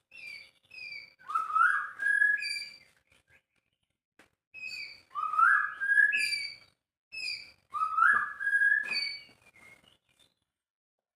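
White-rumped shama (murai batu) singing: three similar phrases of clear whistled notes, each with a rising slurred whistle, a short pause between phrases.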